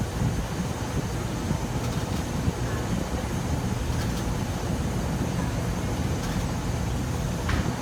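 Rheem A/C blower unit running with a steady low rumble.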